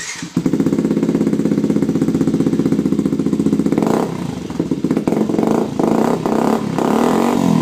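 Yamaha WR125's single-cylinder four-stroke engine running steadily, then blipped several times from about halfway through, its pitch rising once more just before it cuts off suddenly.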